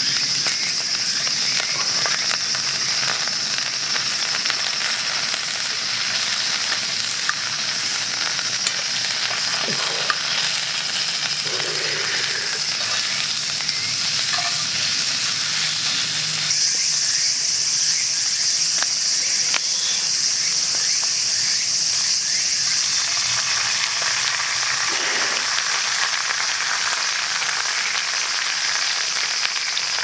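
Hamburg steak patties and broccoli sizzling steadily in a black iron frying pan, with a few light clicks.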